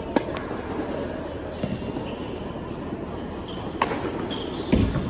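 Tennis ball struck by rackets in a warm-up rally: a sharp pock from a serve at the start, a fainter hit from the far end about a second and a half later, and another close hit about four seconds in. A dull, heavier low thump follows near the end.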